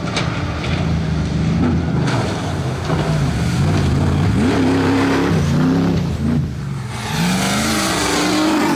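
Off-road race vehicles' engines revving hard over dirt and mud, the pitch rising and falling repeatedly with throttle and gear changes. A hissing wash of noise rides over the engine in the last couple of seconds.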